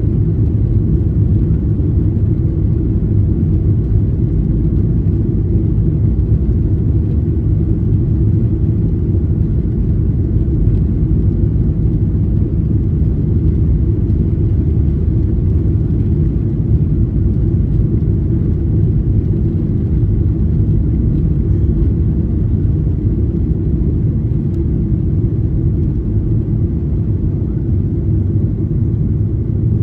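Boeing 737-900ER heard from the cabin on its takeoff roll: its CFM56-7B engines at takeoff thrust and the wheels rumbling over the runway, a loud, steady, deep rumble.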